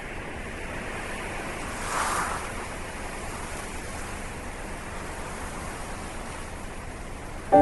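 Steady rushing noise, swelling briefly about two seconds in.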